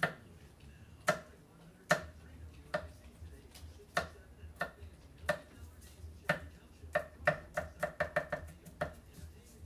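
Knife mincing garlic on a cutting board: sharp chops of the blade on the board, spaced under a second apart at first, then a quicker run of several chops a second near the end.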